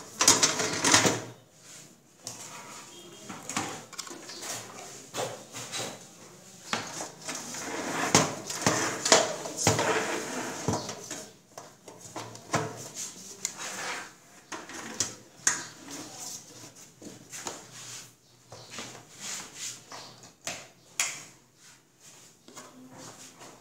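Rice cooker's stainless-steel body and plastic parts being handled and fitted together: irregular knocks, clicks and scrapes, loudest about a second in and again around the middle.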